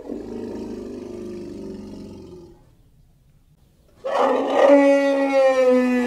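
Stegosaurus roar sound effect. A low growl trails off about two and a half seconds in. After a short pause, a loud roar with a steady, slightly falling pitch starts about four seconds in.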